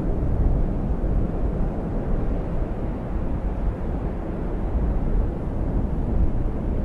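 Steady low rumbling noise with no music or voice, like outdoor ambience or a distant engine.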